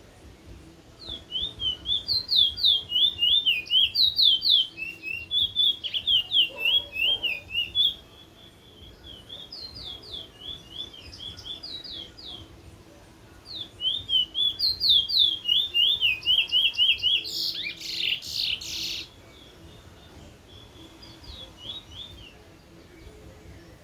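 A songbird singing phrases of a rapid, repeated two-note whistle, a 'teacher-teacher' song, several notes a second, in bursts a few seconds long. A harsh, noisy burst about a second and a half long comes about three quarters of the way in.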